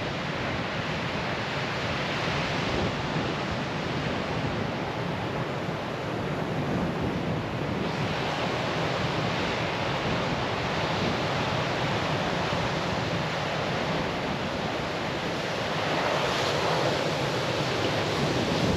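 Ocean surf washing onto a boulder beach, a steady rushing noise, with wind on the microphone.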